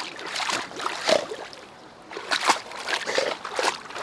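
Water splashing and sloshing in irregular strokes as a dog wades at the edge of a lake, the loudest splashes about a second in and again past the middle.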